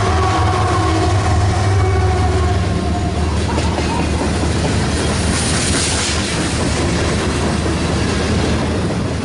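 Scale Trains ES44AC model diesel locomotives running by with their sound decoders playing a steady diesel engine drone, along with clatter from the running gear. A few held tones fade out about three seconds in.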